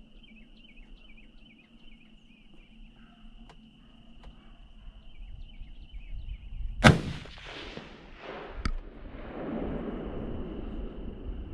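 Steady high insect trill with small repeated chirps, then a single loud gunshot about seven seconds in whose echo rolls away across the field. A sharp click follows under two seconds later, then a low rushing noise.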